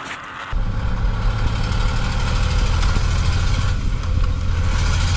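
A Tornado-G rocket launcher truck's diesel engine idling steadily, heard from inside the cab. It starts abruptly about half a second in.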